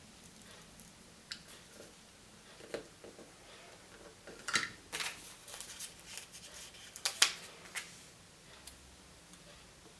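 Surprise-egg packaging being opened by hand: irregular crinkles of plastic wrapper and clicks of plastic. The loudest crinkles come near the middle and again about two-thirds of the way through.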